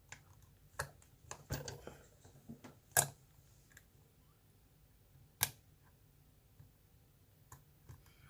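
Small, scattered clicks and taps of a lock pick working the pins of a pin-tumbler challenge lock held in a false set under tension, with two sharper clicks about three and five and a half seconds in.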